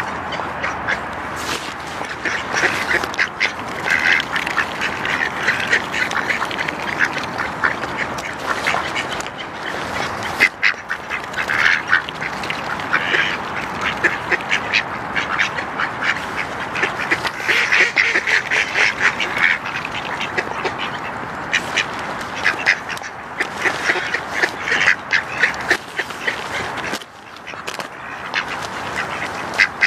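A crowd of mallards calling close up: a dense, unbroken stream of short quacks and chattering calls.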